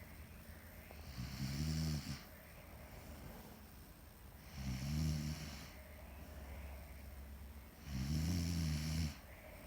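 A woman snoring in her sleep: three loud snores, each about a second long and roughly three seconds apart, with quieter breathing between.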